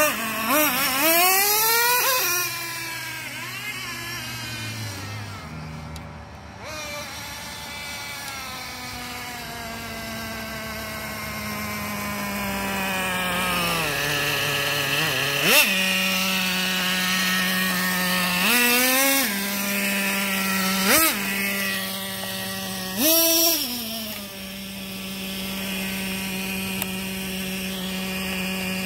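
Nitro RC monster truck's small glow-fuel engine running, revving up and down as the truck drives. In the second half it settles to a steady idle, broken by four short, sharp throttle blips.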